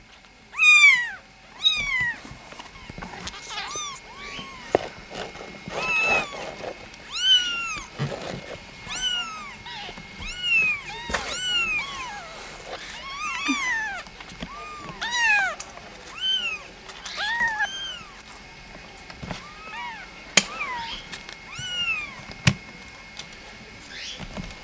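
A young kitten meowing over and over in high cries that rise and fall in pitch, about one a second, loudest in the first two seconds. Two sharp clicks come near the end.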